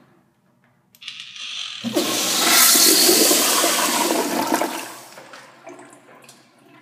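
Commercial toilet flushing through its exposed chrome flushometer valve. The water rush starts sharply about a second in, runs loud for a few seconds, then tapers off near the end.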